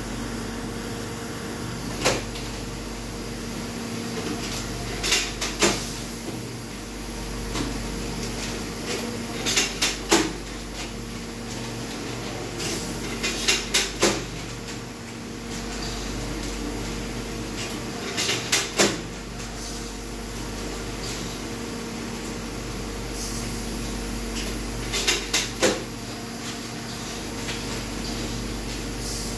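Steelco VS6/2 steam sterilizer running with a steady hum, broken every few seconds by short clusters of two or three sharp clicks.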